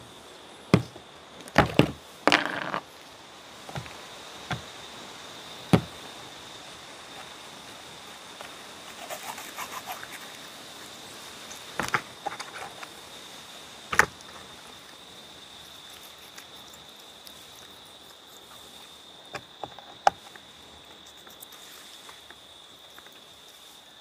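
A steady high-pitched insect drone, with sharp knocks and taps from handling cooking things while fish is seasoned: a quick cluster in the first few seconds, then a few scattered knocks later.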